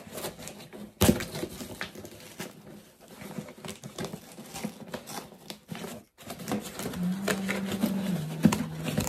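Cardboard shipping box handled by hand, its packing tape picked and scratched at, with rustling, scraping and small clicks and a sharp knock about a second in. From about seven seconds in, a low steady hum comes in and drops in pitch once.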